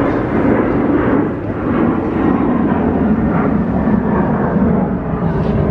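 Wind buffeting the microphone outdoors: a loud, steady low rumble.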